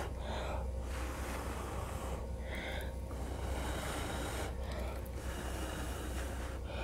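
A person blowing by mouth onto wet acrylic paint to push it across the canvas in a Dutch pour: several long blows of a second or more, with short breaks to draw breath between them.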